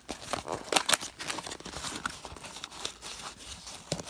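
A small cardboard mailer box being torn open by hand: irregular tearing and rustling of cardboard, with crinkling as the wrapped contents are handled.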